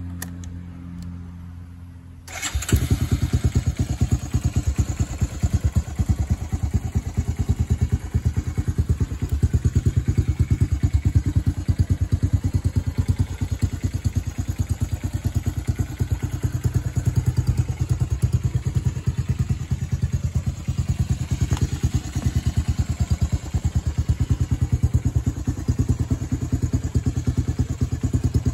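Honda TRX250EX ATV's single-cylinder four-stroke engine with an aftermarket Big Gun exhaust, cold-started on the electric starter: it cranks for about two seconds, then catches and settles into a steady idle of rapid exhaust pulses.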